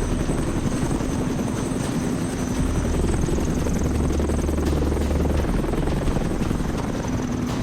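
Helicopter in flight, its rotor blades chopping steadily.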